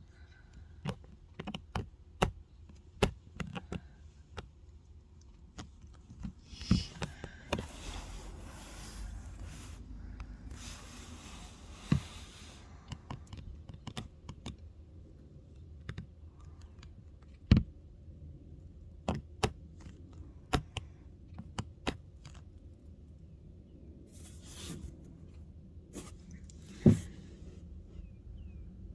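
Scattered sharp clicks and taps, with a few louder knocks, over a faint low rumble and stretches of soft hiss.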